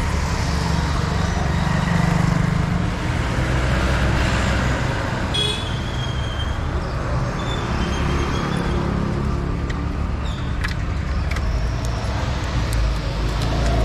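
Busy town-street traffic: motor vehicles running and passing in a steady rumble, with a brief high tone about five and a half seconds in and a few sharp clicks near the end.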